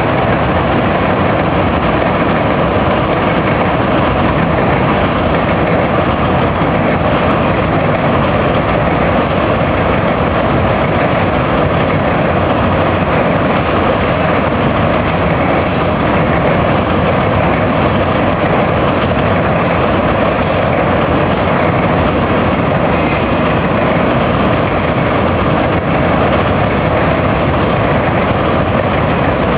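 A heavy engine running steadily, a constant rumble with an even rushing noise that holds the same level throughout.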